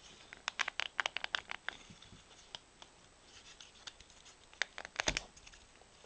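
Wooden UGears combination lock clicking and rattling as it is twisted and pulled open by hand. The lock is stiff and has to be wrestled open. A quick run of clicks comes in the first couple of seconds and another near the end.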